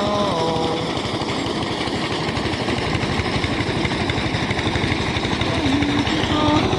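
Engine-driven rice threshing machine running steadily, its engine beating in a fast, even rhythm under the noise of the threshing drum.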